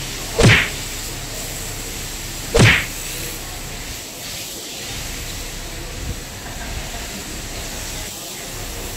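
Steady hiss of water from a hose running over a wet tiled floor, broken twice near the start by a loud short whoosh, the two about two seconds apart.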